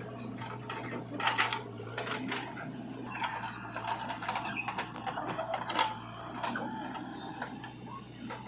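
A small mechanism clicking and ratcheting irregularly over a steady low hum, busiest in the middle.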